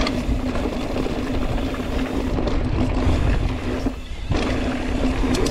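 Mountain bike rolling along a dirt trail: wind buffeting the microphone over the rumble of the tyres, with a steady buzz running through it. It eases briefly about four seconds in.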